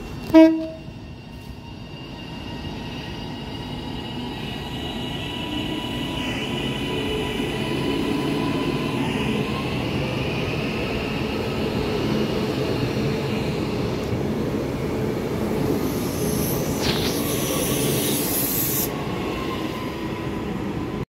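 Northern Class 331 electric multiple unit sounds one short horn blast, then runs along the platform with a steady rumble of wheels on rail under the whine of its electric traction motors, growing louder as it draws level. Near the end comes a brief burst of high hiss.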